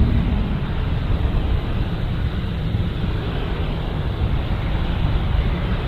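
Boeing 777-300ER's GE90 jet engines: a steady, deep rumble as the airliner rolls along the runway, easing off a little in level.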